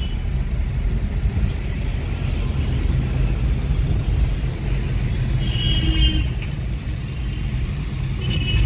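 Road noise inside a taxi's cabin: a steady low rumble of the engine and tyres in traffic, with a brief high-pitched beep about six seconds in.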